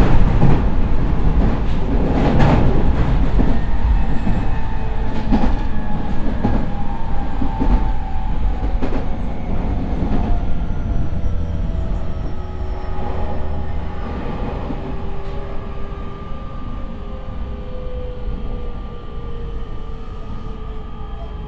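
JR East E501 series EMU heard from the seat inside a motor car: wheels knock over rail joints at speed, then the Toshiba IGBT-VVVF inverter and traction motors sing in several slowly falling tones as the train brakes, the running noise fading as it slows.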